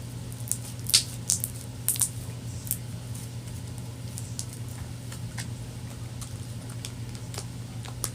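Glue slime being mixed in a container: wet, sticky squishing with sharp clicks, busiest in the first three seconds and fainter after, over a steady low hum.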